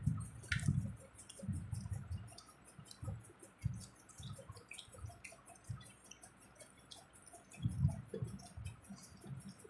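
Several people eating fuchka (pani puri) at once: wet chewing and mouth sounds with small scattered clicks and irregular soft low thumps.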